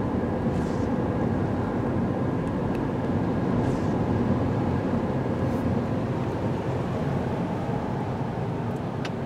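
Steady road and engine noise inside a moving car's cabin, with the tyres running on a wet road.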